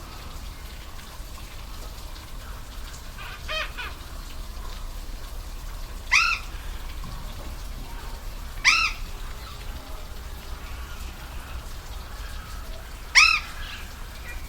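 Steady rush of falling water, with a bird calling over it: one fainter call and then three loud, short, rising calls a few seconds apart.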